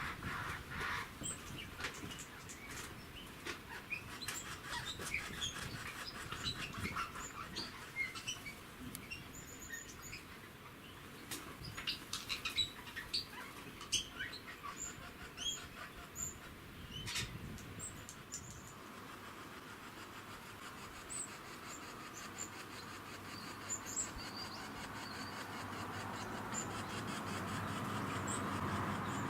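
Birds chirping: many short, high calls scattered throughout, busiest in the first two-thirds. A motor vehicle's noise slowly grows louder toward the end.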